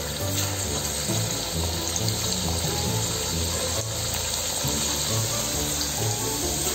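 Potato slices deep-frying in hot oil, making a steady sizzle, with background music.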